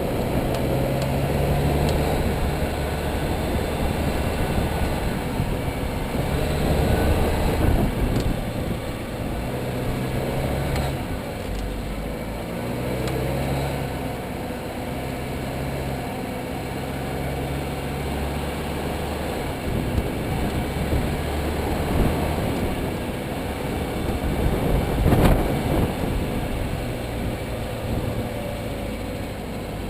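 A car being driven, with steady engine and road rumble that rises and falls in pitch. A few sharp clicks or knocks cut through it, the loudest about 25 seconds in.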